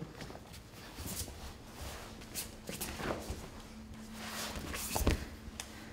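Grapplers in gis scuffling on a foam mat: fabric rustling and bodies shifting and brushing the mat in short scuffs, with a heavier thump about five seconds in.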